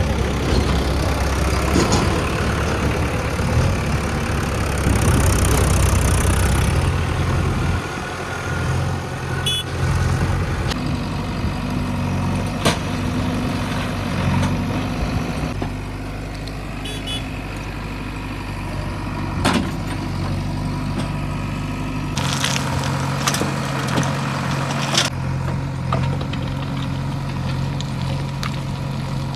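Heavy diesel engine working hard and loud for the first several seconds, then dropping back to a steady idle. Sharp metallic clanks and knocks come now and then, and several come close together about three-quarters of the way through.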